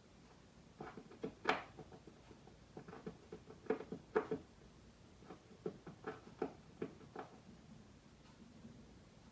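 Irregular thumps and knocks in the ceiling from an animal that got into the attic, in scattered clusters that stop about two-thirds of the way through.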